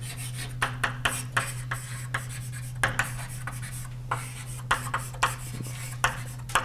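Writing on a board: a quick, irregular series of short taps and scrapes as the symbols are written out. A steady low electrical hum runs beneath.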